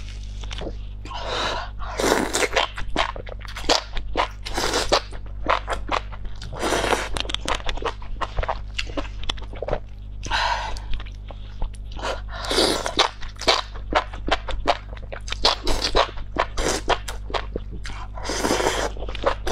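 Close-miked eating of spicy enoki mushrooms in chili oil: crisp crunching and chewing, broken by repeated noisy slurps at irregular intervals. A steady low hum runs underneath.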